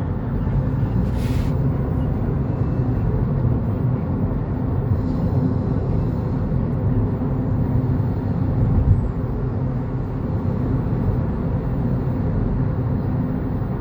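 Steady low rumble of a car's engine and tyres while driving at highway speed, heard from inside the car.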